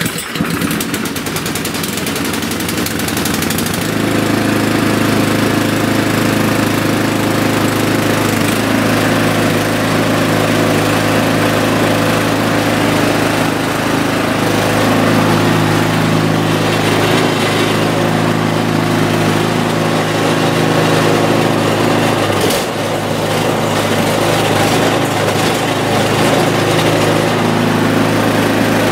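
Toro snowblower's small gas engine just started on choke with the throttle at the rabbit setting. For the first few seconds it runs with a rapid flutter, then about four seconds in it settles into a louder, steady run. It sags briefly once about 22 seconds in.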